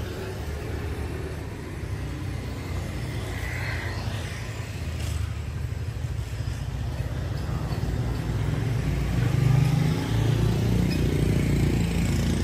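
Low outdoor rumble that swells about eight seconds in and is loudest near ten seconds.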